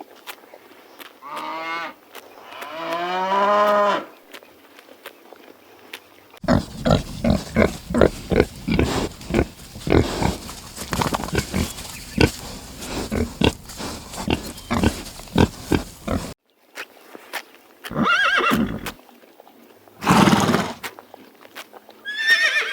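A run of animal sounds: two short calls rising in pitch, then about ten seconds of rapid, irregular knocking, then three more short calls.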